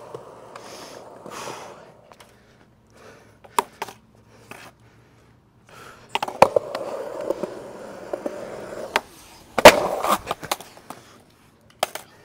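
Skateboard wheels rolling over concrete in two stretches, broken by sharp knocks of the board. Near the end of the second roll comes the loudest hit, a sharp slap, then smaller clatters of the board as the skater bails and falls.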